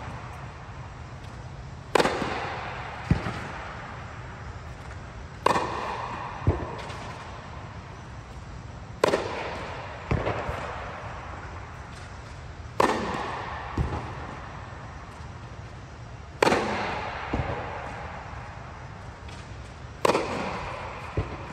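Tennis serves: six sharp racket-on-ball strikes about every three and a half seconds, each with a long echo under a fabric air dome, and each followed about a second later by a softer knock from the ball.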